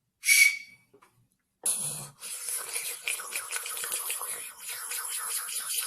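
A man making odd mouth noises: a short hissing squeak, then a long run of fast clicks and hiss made with the mouth, like a beatboxer's rattle.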